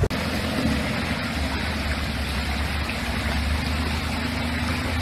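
Engine of a lifted Suzuki 4x4 running steadily at low revs, with no revving, over an even rush of stream water.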